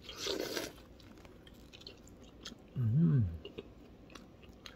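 A bite into a fried meatball with a short crunch, then quiet chewing with small clicks. About three seconds in, a brief hummed "mmm" that rises and falls in pitch, the loudest sound here.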